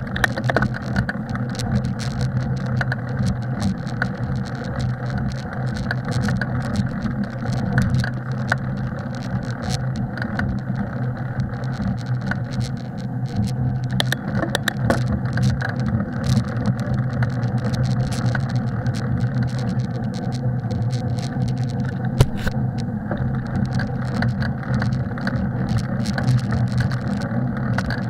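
Bicycle being ridden along a snowy trail: a steady low rumble of tyres and drivetrain, with many small clicks and rattles throughout.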